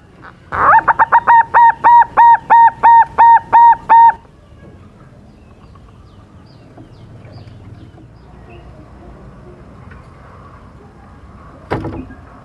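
Young silver-morph zebra dove (perkutut) singing loudly: a quick run of about a dozen clear, evenly spaced cooing notes, each opening with a short downward slide, lasting about three and a half seconds. A single short knock comes near the end.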